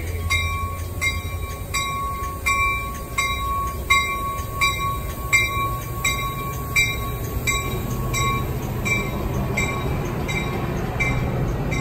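A bell rings steadily about every two-thirds of a second, over the low rumble of a Metra bilevel commuter train rolling past. The bell grows fainter and slower near the end.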